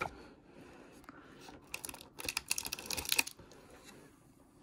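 Crinkling of a plastic-wrapped Mon Chéri chocolate as it is pulled from a cardboard advent calendar compartment: a quick run of small crackles and clicks lasting about a second and a half, in the middle of the stretch.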